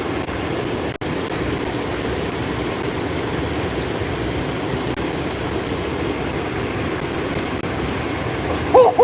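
Steady rushing of stream water pouring over a small waterfall, with a brief dropout about a second in. A short vocal exclamation comes right at the end.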